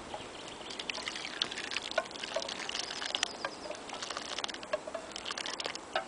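Soup being ladled from a metal cooking pot into an aluminium bowl: liquid pouring and splashing, with a quick run of light clinks and scrapes of the metal ladle against the pot.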